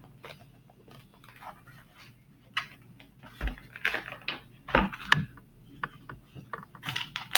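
Irregular small clicks, taps and knocks of hard plastic, glass and ceramic parts of a Puffco Peak vaporizer kit being handled and fitted together, with a couple of louder knocks near the middle and end.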